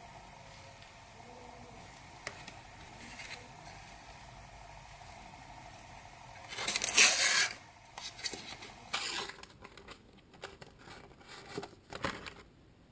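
Foil sticker packet crinkling as it is handled, in one loud burst about seven seconds in, followed by lighter rustles and clicks of the packets and paper stickers.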